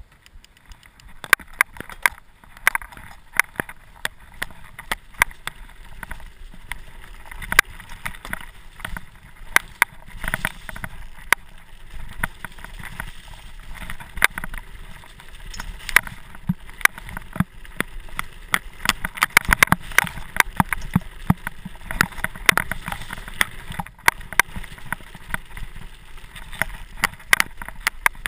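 Mountain bike ridden fast down a gravel forest track. Its tyres rumble steadily over the ground, and the bike gives frequent sharp clicks and clatters as it jolts over bumps, most densely about two-thirds of the way through.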